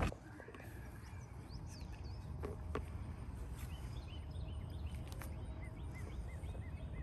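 A bird singing a run of short, repeated arched notes, about two a second, starting about halfway through, over a steady low rumble. A few sharp clicks stand out, two close together a little before the song starts and one more in the middle of it.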